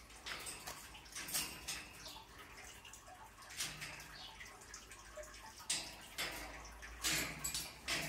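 Faint trickling and dripping of a fish tank's water, with small irregular splashes or clicks every second or so.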